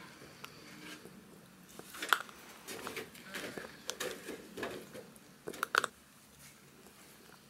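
Small yorkie-schnauzer mix dog chewing and gnawing a chew toy close to the microphone: irregular crunching clicks and snaps, sharpest about two seconds in and again near six seconds, then fading.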